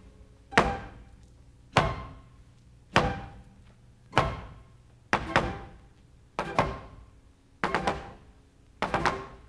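Flamenco footwork: a dancer's shoe heels stamping on a wooden stage floor. Single stamps come about a second apart, then pairs of quick stamps, each with a short echo.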